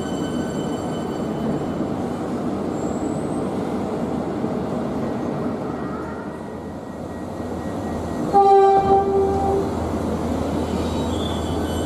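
Train running through the station with a steady rumble and a high, steady whine in the first seconds. About eight and a half seconds in, a loud train horn sounds one short blast of about a second.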